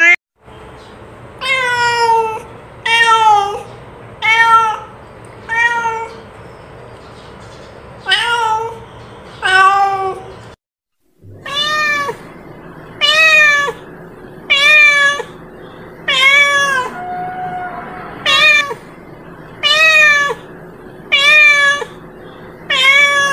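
A domestic cat meowing over and over, about one short meow every second and a half, each call sliding down in pitch at its end. There is a brief break about eleven seconds in.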